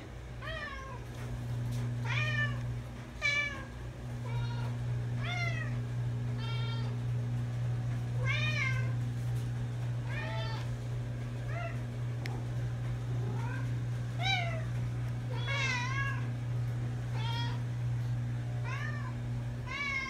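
House cats meowing over and over, about one meow a second, each call rising and then falling in pitch. A steady low hum runs underneath.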